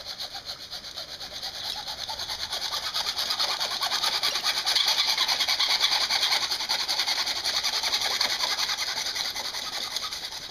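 Hacksaw cutting through a plastic vacuum extension wand with quick, steady back-and-forth strokes, to take off a cracked end that leaks. The rasp grows louder over the first few seconds and eases toward the end as the blade nears the end of the cut.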